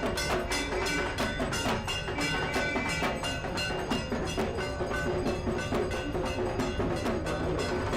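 Music with a fast, even percussion beat, sharp knocking strikes several times a second, over held ringing tones.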